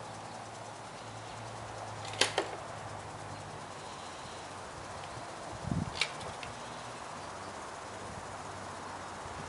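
Outdoor ambience: a steady faint hiss with a low hum, broken by two sharp clicks about two seconds in and a dull thump followed by a click around six seconds in.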